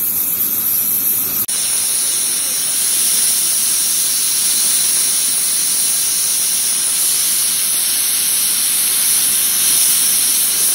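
Oxy-fuel cutting torch hissing steadily as its flame and oxygen jet cut through a steel pipe, with a momentary dropout about a second and a half in.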